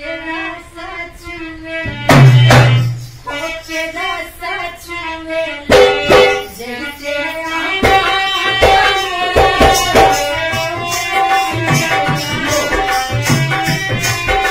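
Indian dance song: a voice singing a melody, a loud drum hit about two seconds in, then a steady, driving drum beat that takes over about halfway through.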